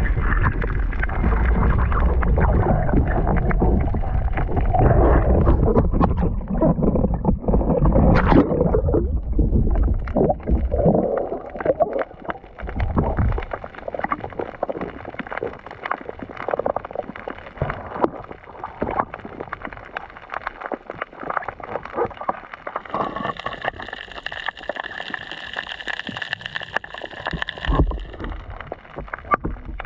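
Water gurgling and sloshing around an underwater camera, with many small clicks and crackles throughout. A heavy low rumble fills roughly the first dozen seconds, then it turns quieter. From about 23 to 28 seconds in, a steady high two-tone whine sounds over it.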